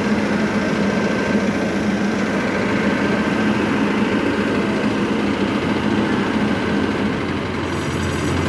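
Combine harvester's diesel engine running steadily up close, a continuous mechanical hum with a held low tone that shifts slightly near the end.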